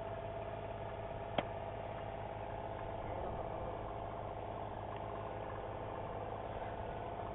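A steady low hum, with a single sharp click about a second and a half in.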